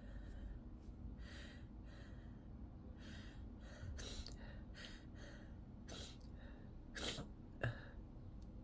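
A person's sneeze buildup: a run of short, hitching breaths, each a quick gasp, spaced about half a second to a second apart. Near the end come two sharper, louder bursts, the last a short sneeze.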